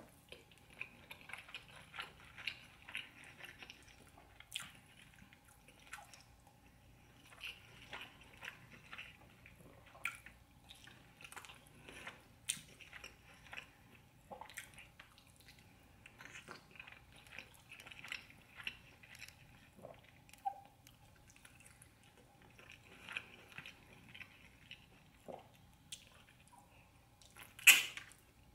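Close-up chewing and biting of tender stewed oxtail meat, in bouts of a few seconds made of many small clicks of the mouth. One sharp, much louder click comes near the end.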